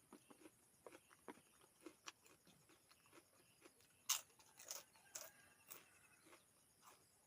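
A person eating: quiet chewing with scattered small crunches and mouth clicks, one louder crunch about four seconds in.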